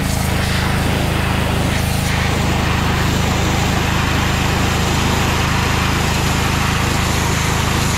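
Pressure washer running steadily, its high-pressure jet hissing as it blasts the steel spring bars of a weight-distribution hitch lying on a wooden board, under a constant low machine hum.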